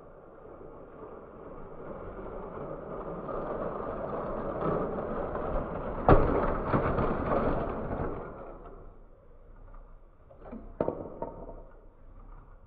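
Lego train rolling on plastic Lego track, its rumble growing louder as it approaches. About six seconds in, it crashes into a wall with a sharp bang, followed by a couple of seconds of clattering as the cars derail and pile up. A few light plastic clicks come near the end.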